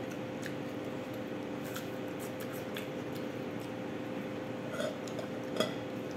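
Light clicks and clinks of fingers and a spoon against a ceramic bowl during eating by hand, the sharpest clink about five and a half seconds in, over a steady hum.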